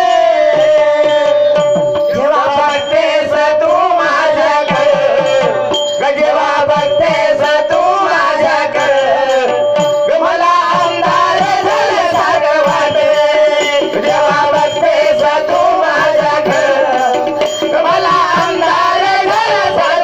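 Live Marathi folk song: voices singing through a PA, with a hand drum keeping a quick rhythm and a steady held note underneath.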